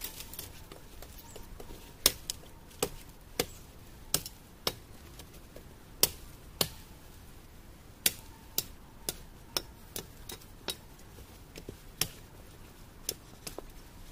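Dry branches or stems being cut down by hand: a string of sharp, irregular cracks, one or two a second, most of them from about two seconds in.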